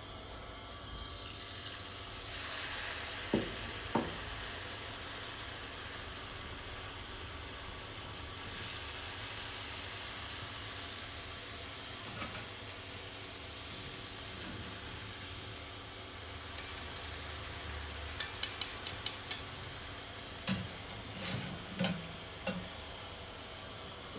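Achappam batter on an iron rose-cookie mould frying in hot oil: a steady sizzle that starts about a second in, as the batter-coated mould goes into the oil. Two knocks come early, and a run of sharp clicks and taps comes later.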